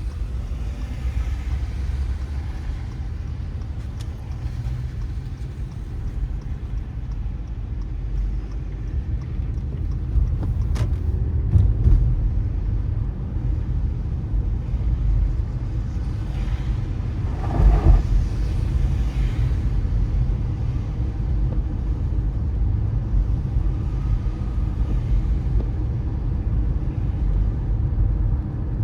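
Car driving on a wet road: a steady low rumble with the hiss of tyres on wet asphalt, and a louder swish about eighteen seconds in.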